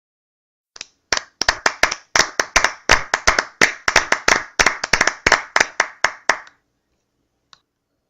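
Rapid clapping, sharp slaps at about four to five a second for some five and a half seconds, then stopping, with one faint click near the end.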